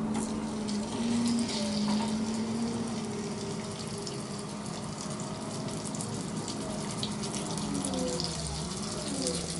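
Breaded chicken pieces sizzling and crackling in hot oil in a frying pan, with more pieces being laid in. A low wavering tone runs beneath it.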